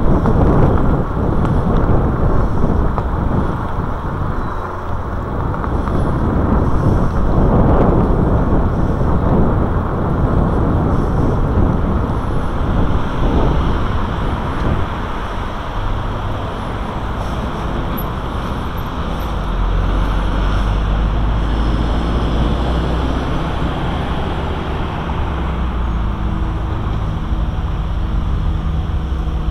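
Wind rushing over the microphone of a handlebar-mounted camera on a moving bicycle, with road traffic passing. In the second half the wind noise eases and a steady low hum of car engines nearby comes through.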